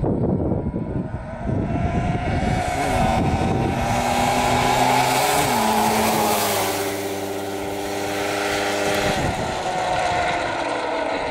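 Yamaha Blaster's single-cylinder two-stroke engine running hard on a flyby, shifting up twice as it approaches. Its pitch drops as it passes about six seconds in, and then it recedes. It is pretty loud, and the owner thinks the bearings in it are shot.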